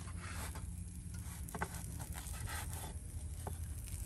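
A knife slicing through grilled boudin with crisp skin on a wooden cutting board: soft crackly cuts and a few light taps of the blade and tongs on the board, over a low steady hum.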